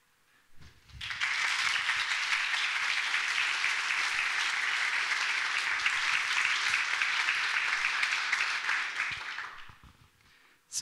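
Audience applauding: clapping starts about a second in, holds steady for about eight seconds, then dies away near the end.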